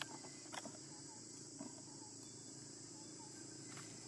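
Steady high-pitched insect chorus of crickets or cicadas, with a few short, sharp clicks at the start and in the first two seconds.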